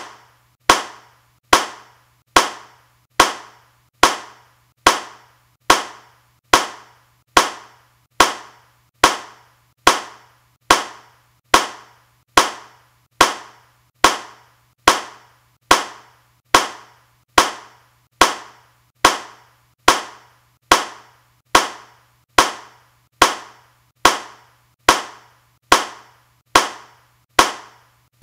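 A single hand clap repeated at an even pace, a little over once a second. Each clap is a sharp crack that dies away quickly, over a faint steady low hum.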